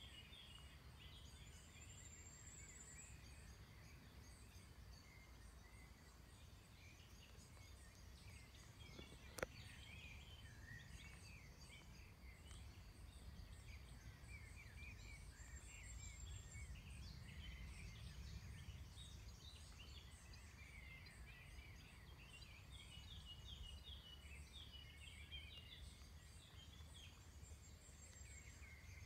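Faint outdoor ambience: many small birds chirping and twittering on and off over a steady low rumble. A single sharp click about nine seconds in.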